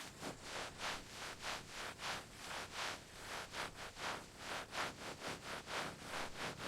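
Rhythmic scraping rustles, about three short strokes a second, stopping near the end.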